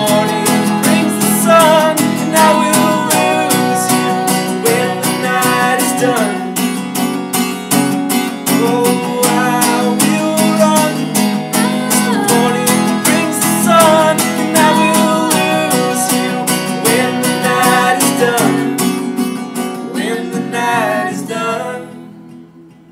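Instrumental break of an acoustic folk song: strummed acoustic guitar under a gliding melody line, fading out about twenty-one seconds in.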